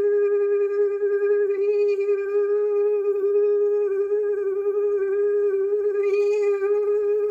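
A woman's voice holding one long sung tone on a steady pitch, a healer's 'clearing tone', with a slight waver and the vowel colour shifting a little twice.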